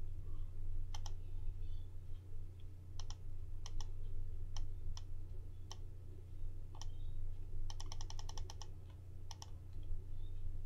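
Computer mouse and keyboard clicking: single sharp clicks every second or so, then a quick run of about eight taps around eight seconds in. A steady low hum runs underneath.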